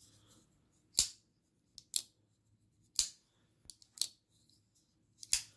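Benchmade 940 folding knife's AXIS lock being worked over and over: five sharp metal clicks about a second apart as the blade snaps open and drops shut freely when the lock is released.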